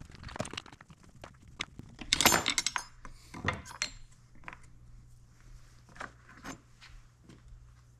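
Metal clinks and rattles of hand tools and small steel hardware being handled while a chainsaw's felling dogs are unbolted, with a dense jangling flurry about two seconds in, then scattered clicks.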